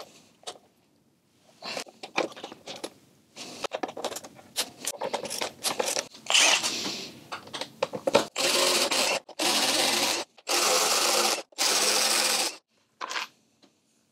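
A cordless power driver runs in four bursts of about a second each, spinning out the bolts that hold a motorcycle's rear luggage rack. Before that come irregular clicks and scrapes of tools and metal parts being handled.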